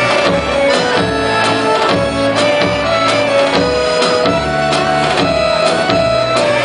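Serbian folk dance music in the Vranje style: a winding melody over a steady drum beat.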